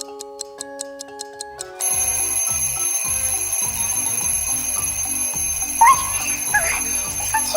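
A clock ticks, about four ticks a second, over soft music. About two seconds in, an alarm clock goes off suddenly with a loud, shrill, steady electronic ring over a pulsing beat. Near the end, short squeaky gliding sounds join it.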